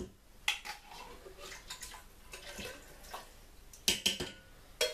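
Spoon scraping and knocking inside a tin of coconut milk, scraping the thick last of it out into the soup pot, with several short clinks, the loudest cluster about four seconds in.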